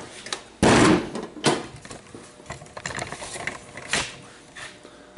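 Clunks and rattles of a small drawer toolbox being carried and set down on a folding table, with one loud knock about a second in followed by a string of smaller knocks.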